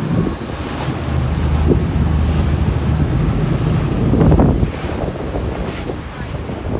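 Wind buffeting the microphone over the rush of the wake and the steady low drone of the tour boat's engine, heard on deck while the boat is underway. The wind and water grow louder about four seconds in.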